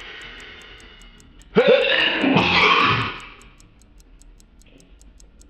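A man sneezes once, set off by sniffed pepper: a breathy in-breath builds, then about a second and a half in comes a loud voiced "ah" bursting into a noisy sneeze that lasts about a second and a half. A quick, regular high ticking runs underneath throughout.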